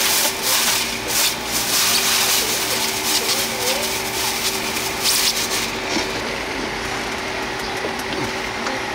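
Steady mechanical hum with a constant low tone. Over it is a hissing, scraping noise that stops about six seconds in.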